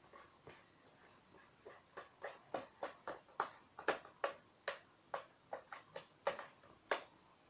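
A stirring utensil clicking and tapping against the container as glue is stirred for slime: an irregular run of sharp clicks, about three a second, starting about two seconds in.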